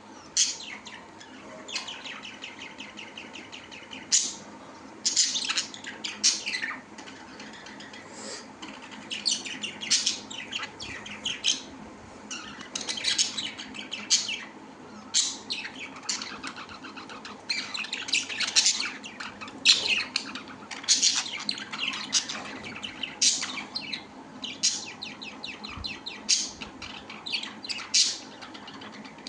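Pet birds chirping and squawking without a break: loud, sharp calls every second or two over a constant run of quicker, softer chirps.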